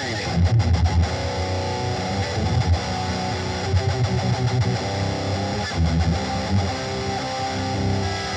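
Instrumental rock music: electric guitar over a bass guitar line.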